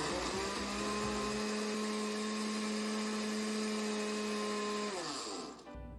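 Countertop blender motor running at a steady pitch, puréeing tomatoes, garlic and onion with water. It spins up at the start and winds down about five seconds in, its pitch falling as it stops.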